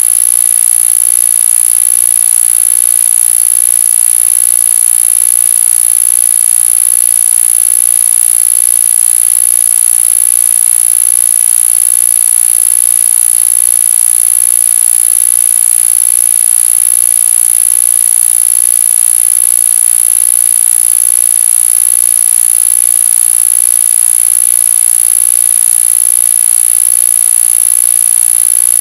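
Electronic control signal for an iEars TENS ear-acupuncture stimulator, meant to be played at full volume from a phone to drive the device. It is loud and unchanging: a steady high-pitched tone over a fast, even pulsing buzz.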